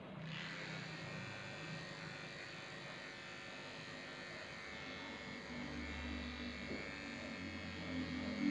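Electric dog grooming clippers switched on at the start and running steadily with a buzzing whine. A lower hum joins in from about halfway through.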